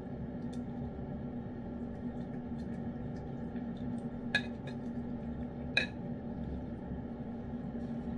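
Metal utensil clinking and scraping against an open tin can of wet cat food as the food is scooped out, with faint ticks and two sharper clinks, about four and six seconds in. A steady low hum runs underneath.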